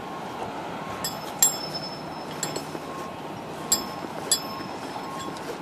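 A few sharp metallic clinks, each ringing briefly: one about a second and a half in and two more close together around four seconds in, over a steady hiss.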